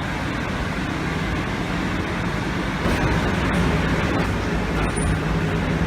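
Pellet burner firing inside a bakery oven's heat exchanger: a steady rushing noise of blower fan and flame, with a low hum, growing louder about three seconds in.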